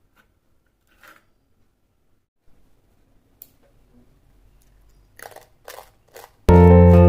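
Crunching of crisp fried murukku: a faint crunch about a second in, then three sharper crunches close together about five seconds in. Piano music comes in just before the end.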